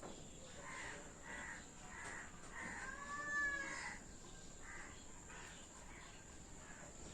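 A bird calling repeatedly, faint: a run of short calls over about four seconds, the loudest an arched call with a rising-then-falling pitch about three seconds in.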